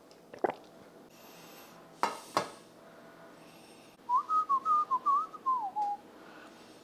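A few sharp knocks, one near the start and two about two seconds in, then a person whistling a short tune of quick notes that step up and down for about two seconds.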